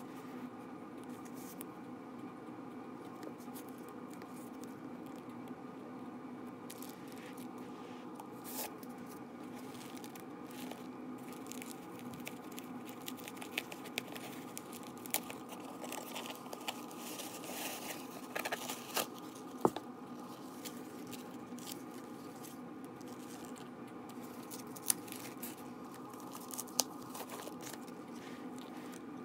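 Faint rustling and crinkling of tissue-paper and foam packaging wrap being handled and peeled off a handbag, with scattered light clicks and tape-peeling sounds that come more often in the middle. A steady faint hum runs underneath.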